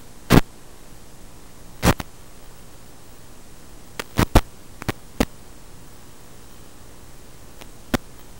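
Steady static hiss from an analog FPV video link's audio channel, broken by about eight short crackling bursts, the loudest near the start and a cluster about four to five seconds in. The bursts mark moments when the analog radio signal breaks up, as in the garbled video frame at the start.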